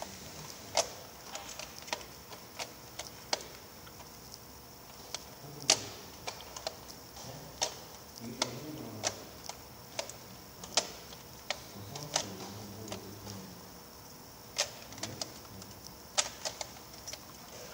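Irregular sharp clicks and taps of small hard objects being handled on a tabletop, coming one to three a second at uneven spacing, with one louder click about six seconds in.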